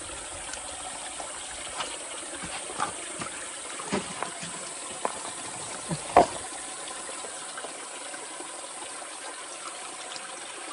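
Shallow stream water running steadily, with a few short sharp sounds, the loudest about six seconds in.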